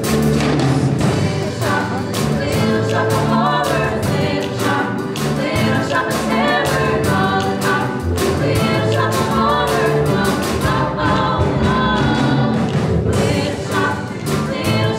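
Three female singers singing the opening number in harmony, backed by a live pit band with a steady beat.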